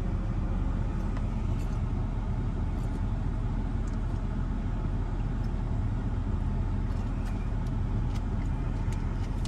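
Vehicle engine idling with a steady low rumble, heard from inside the cab.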